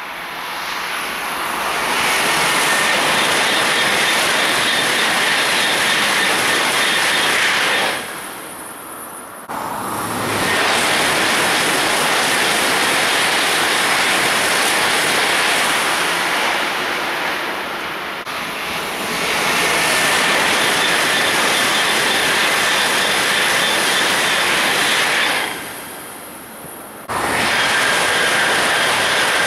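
Eurostar Class 373 high-speed electric train passing at speed: a loud rush of wheel-on-rail and air noise that builds over the first two seconds, with a faint thin high whine running through it. The rush falls away twice and comes back abruptly.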